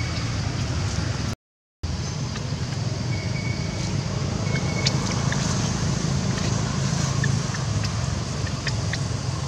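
Steady low outdoor rumble, with a few faint short high squeaks and ticks over it. The sound cuts out completely for a moment early on.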